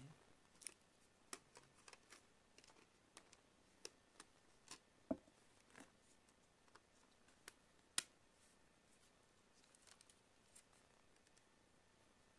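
Scattered light clicks and taps of small tablet parts being handled and put away, with two sharper clicks about five and eight seconds in.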